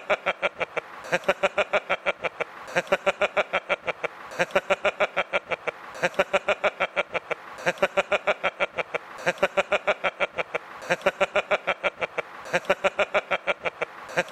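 A man laughing hard and without a break, in bursts of rapid "ha-ha-ha" pulses about ten a second. Each burst is followed by a short breath in, and the cycle repeats about every second and a half.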